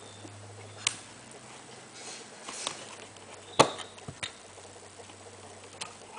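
Handling noise of wiring a light fitting: a few sharp clicks and taps as wire connectors are pushed together and the plastic light housing is handled, the loudest about three and a half seconds in, with some soft rustling between.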